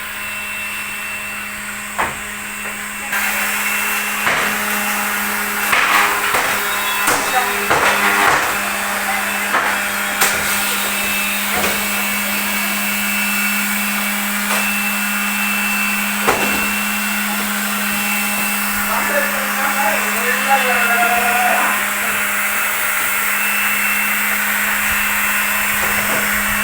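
A steady mechanical hum with a noisy wash over it, broken by scattered sharp knocks and a spell of clattering strokes.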